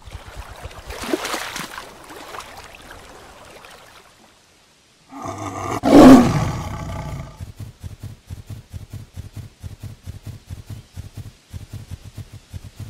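A lion roar about five seconds in, the loudest sound, lasting about two seconds. It is preceded by a short rush of noise like a splash, and followed by a steady run of soft, regular thumps.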